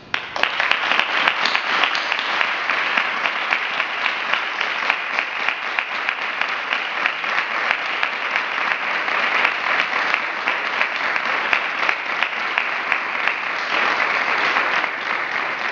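Applause from a group of about twenty people, breaking out at once and going on steadily as a dense patter of hand claps.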